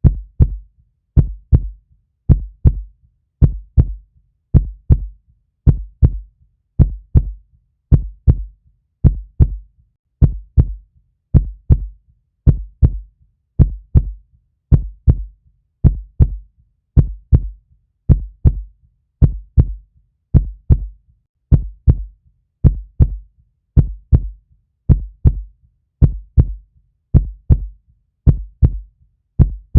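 Heartbeat sound: a slow, steady double thump, lub-dub, repeating a little more than once a second, deep and even.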